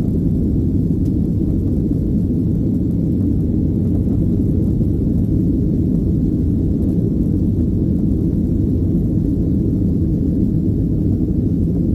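Steady low rumble of a Boeing 737's jet engines and airflow, heard inside the passenger cabin during the climb-out just after takeoff.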